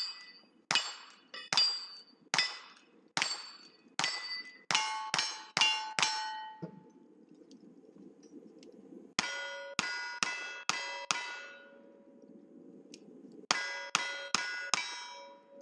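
A rifle fired about eleven times in quick succession, faster toward the end, each shot followed by the ring of struck steel targets. After a pause of about three seconds come single-action revolver shots in a string of five and then a string of four, each also ringing off steel plates.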